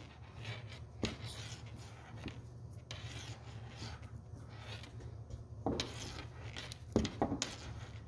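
Cloth harness tape being pulled off the roll and wrapped around a thin wire splice: soft, irregular rubbing and rasping, with a few sharper ticks about a second in and near the end.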